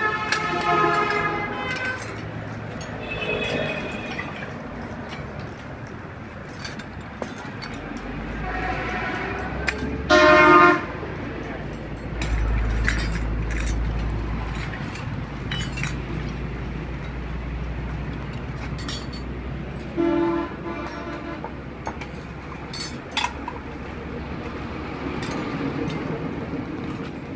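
Road traffic with vehicle horns honking several times, the loudest a short blast about ten seconds in, while a heavy vehicle rumbles past; scattered clicks and knocks throughout.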